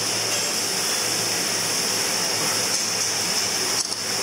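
Steady rushing background noise with a low hum under it, dipping briefly near the end.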